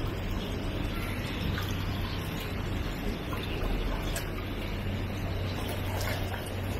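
Water running and trickling steadily, over a constant low hum.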